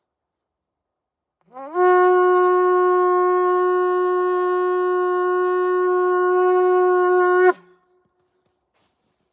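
Shofar sounded in one long blast of about six seconds, starting a second and a half in. The note slides up into pitch, holds steady, then breaks off with a brief upward flick.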